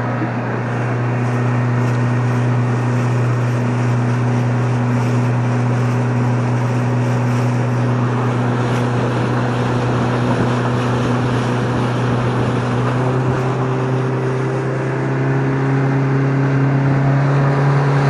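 Fishing boat's engine running steadily under way, a loud hum over the hiss of water and wind, its pitch edging up a little in the last few seconds.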